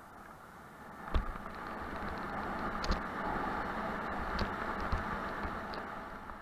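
Wind rushing over an action camera's microphone as a mountain bike speeds down a grassy slope, swelling about a second in and easing off near the end. A hard thump about a second in comes as the bike comes off the end of a wooden ramp onto the grass, and a few lighter knocks follow from bumps in the path.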